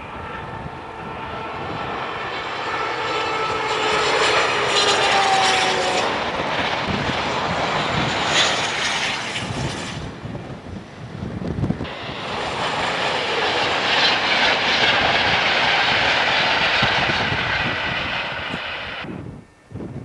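InterCity 125 high-speed train (Class 43 power cars) passing at speed. Its engine whine falls in pitch as it goes by, and a second swell of noise follows about twelve seconds in. The sound cuts off suddenly near the end.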